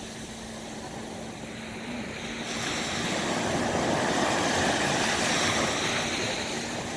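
Sea waves breaking and washing on the shore with wind, the surge swelling a couple of seconds in and easing slightly near the end, over a faint steady low hum.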